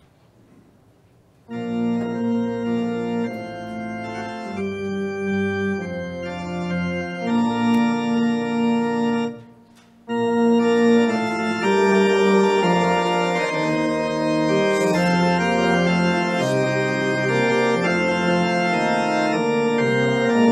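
Organ playing held chords, beginning about a second and a half in; it stops briefly near the middle and then resumes.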